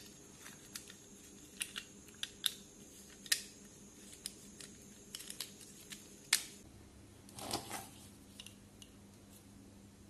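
Scattered small clicks and taps of a keypad phone's plastic frame, circuit board and steel tweezers being handled as the phone is put back together, the loudest click about six seconds in.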